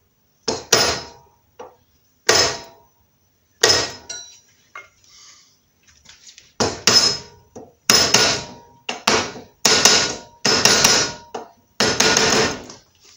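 Hammer blows, metal on metal, driving a part home on a car driveshaft by the centre support bearing. Each blow rings briefly. There are three spaced blows at the start, then a pause, then a quicker run of about a dozen blows.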